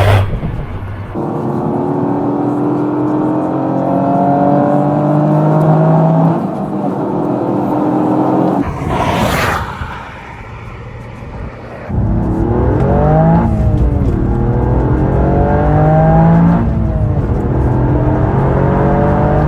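Toyota GR Yaris's turbocharged 1.6-litre three-cylinder engine pulling hard, its pitch climbing steadily for about five seconds. A short rush of noise comes about nine seconds in and is followed by a quieter spell. From about twelve seconds in the engine is louder and revs up and down several times.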